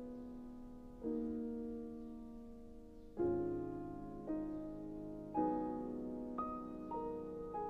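Slow, gentle solo piano music: chords struck every second or so, each left to ring and fade.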